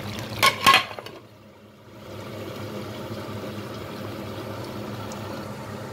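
Aluminium lid put on a cooking pot: two metallic clanks about half a second in, ringing briefly. A steady low hum follows.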